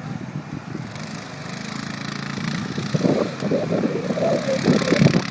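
ATV engine revving, louder and rising in pitch from about two seconds in, with the pitch swinging up and down as the quad slides and spins its rear wheels in loose sand.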